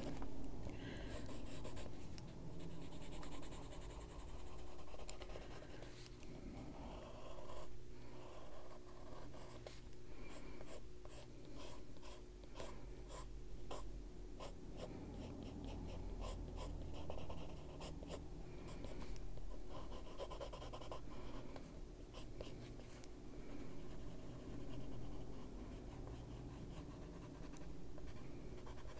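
Coloured pencil rubbing and scratching on paper in many short shading strokes, faint.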